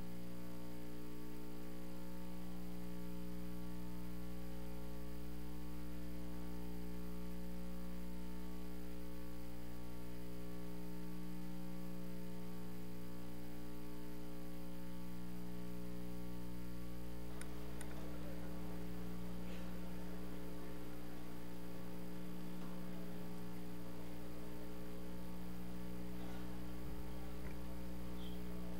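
Steady electrical mains hum with a stack of overtones, carried in the chamber's audio feed. From about two-thirds of the way through, faint room noise with a few small clicks joins it.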